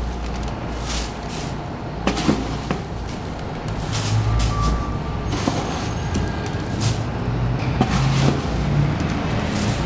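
Paper and foil confetti rustling and crackling in short bursts as it is scooped and dropped by hand into a confetti machine's hopper, over a steady low rumble.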